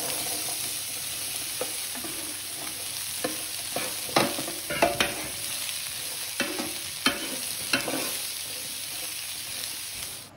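Chopped carrots, onion and long beans sizzling as they fry in a hot pan, a steady hiss, while a utensil scrapes and knocks against the pan about eight times as they are stirred. The sizzle cuts off suddenly at the end.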